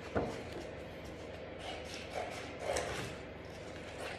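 A sheet of green cardstock being handled and laid on the table: a short tap just after the start, then a few soft rustles of the card.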